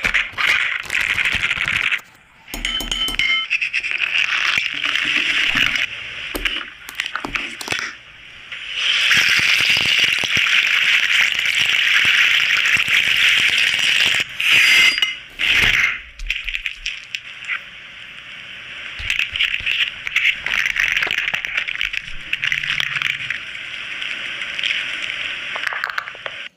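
Capsicum frying in hot oil in a pan, sizzling steadily with scattered crackles and clinks of a utensil against the pan. The sizzle is loudest from about nine to fourteen seconds in.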